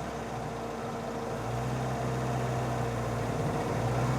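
Car engine running steadily at low revs, its hum growing a little stronger about a second and a half in.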